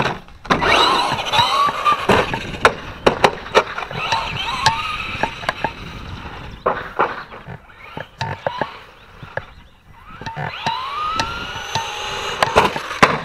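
Traxxas Slash RC truck's electric motor and drivetrain whining up in pitch as it accelerates, several times over, with tyres scrabbling on dirt and sharp knocks as the truck hits the ground.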